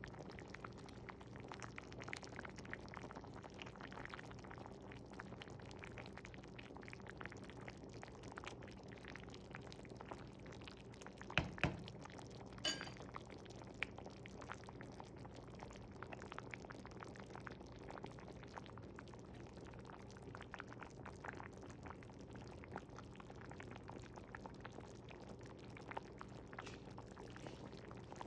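Chicken soup boiling in a pot, a steady patter of small bubbles popping, over a low steady hum. About halfway through come two sharp clinks.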